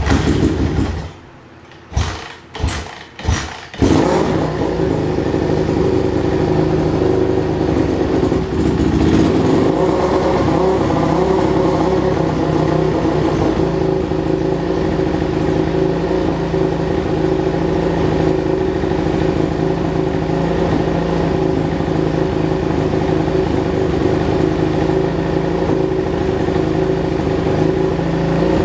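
Freshly rebuilt 2006 Suzuki RM-Z450's single-cylinder four-stroke engine firing in a few short bursts, then catching about four seconds in and running steadily: its first start after a top-end rebuild.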